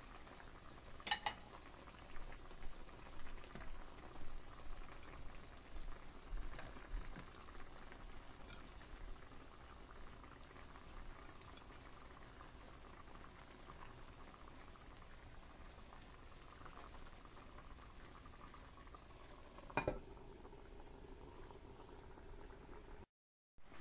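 Pan of tilapia paksiw (fish and vegetables stewing in a vinegar broth) simmering on the stove, a faint steady bubbling, with a few sharp clicks.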